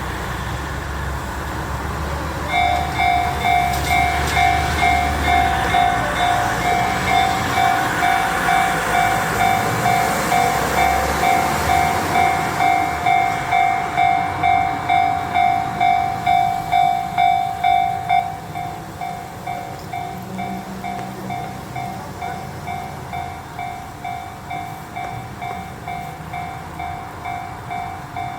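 Japanese level-crossing electronic warning bell starting about two and a half seconds in, ringing a steady clang about twice a second, then dropping to a quieter level about two-thirds of the way through. Train running noise sits under the bell in the first half.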